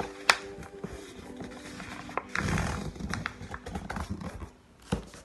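A sheet of paper being folded and creased flat against a tabletop: rustling and crinkling, with sharp taps of hands on the table.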